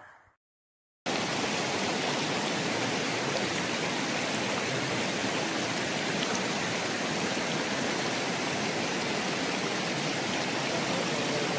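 A moment of dead silence, then the steady rush of river water, an even hiss that does not change.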